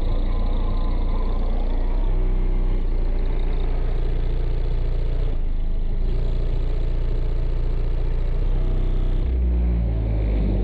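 Bass-heavy music played loud through a truck's car audio system of four 15-inch DD subwoofers in a fourth-order blowthrough box. Deep held bass notes step from one pitch to another every second or two.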